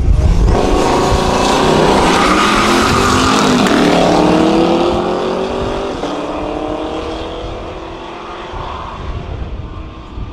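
A muscle car accelerating hard past, its engine note climbing over the first few seconds and then fading away as the car drives off.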